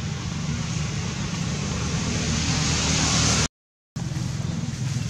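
Road vehicle going by: a low engine hum under a hiss that swells as it passes. The sound drops out completely at an edit about three and a half seconds in, then resumes.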